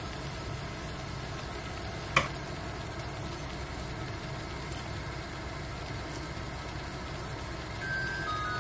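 A steady low hum with a single sharp click about two seconds in. Near the end an electronic chime melody starts.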